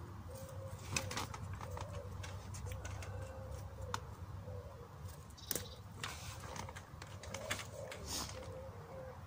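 A pigeon cooing in short, repeated, wavering phrases, with scattered sharp clicks and knocks over it.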